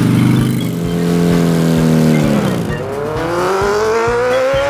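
Motorbike engine sound effect: a steady idle for about two and a half seconds, then the pitch dips and climbs in a long rising rev as the bike pulls away.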